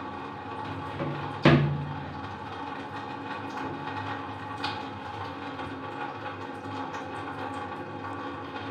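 Kitchenware knocked down on a counter: one sharp clack about a second and a half in, and a fainter click a few seconds later, over a steady low hum.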